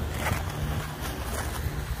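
Wind rumbling on the microphone, with soft footsteps on grass about once a second.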